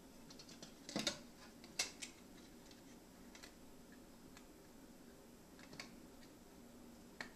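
Scattered light clicks and taps of a T-CON circuit board being handled and set down on a TV's sheet-metal chassis, the sharpest clicks about one and two seconds in.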